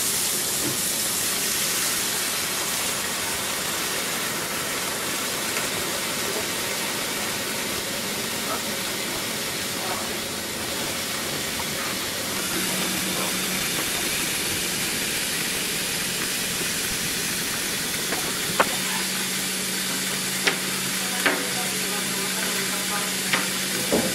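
Water running into the sink and draining through the pipework below, a steady rush that starts abruptly. A low hum joins in briefly about halfway and again from about three quarters of the way through, and a few sharp clicks come near the end.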